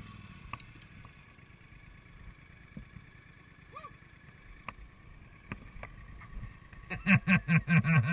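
Mostly quiet, with faint rustling and small clicks, then near the end a person laughing in quick, loud bursts.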